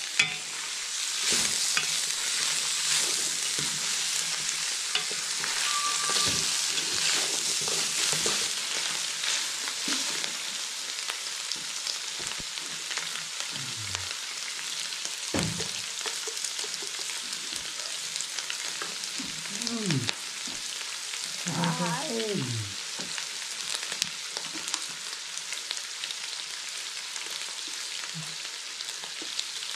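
Beef and green vegetables sizzling as they are stir-fried in a large steel wok, with a wooden spatula scraping and knocking against the pan. The sizzling is loudest in the first several seconds and eases a little after.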